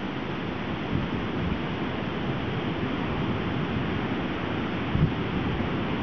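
Steady outdoor wind noise, with gusts buffeting the microphone in low rumbles and a short bump about five seconds in.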